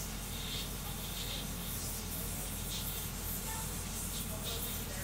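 Voron 3D printer printing fast: a steady fan-and-motor hum with short, irregular hissy bursts as the toolhead darts back and forth.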